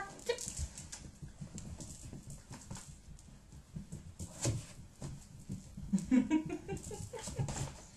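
Miniature Pinscher licking and nosing at the plastic bowl of a treat dispenser, making an irregular run of small clicks and taps as he hunts for the last treats.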